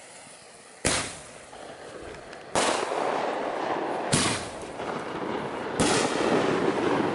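Fireworks going off: four sharp bangs about a second and a half apart, each followed by a rushing, noisy spray that keeps building through the barrage.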